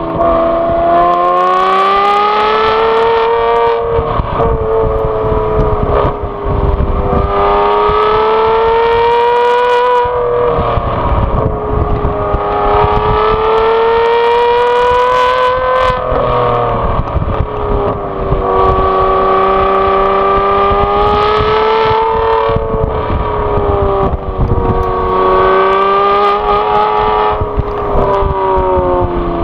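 Modified Aston Martin V12 Vantage S's 6.0-litre V12 exhaust, heard close up at the rear of the car, being driven hard. The engine note climbs and falls in repeated pulls, with a brief break between each about every five or six seconds.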